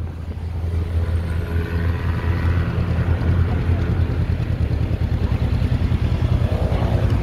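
A vehicle engine running steadily, a loud low drone that pulses quickly.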